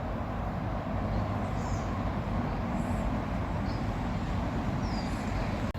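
Outdoor ambience: a steady low rumble, with a few brief, faint high chirps from birds.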